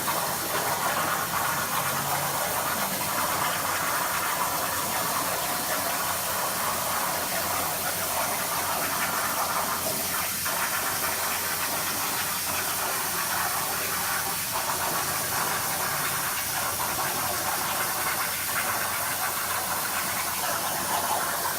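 CNC plasma cutter torch cutting, a steady loud hiss.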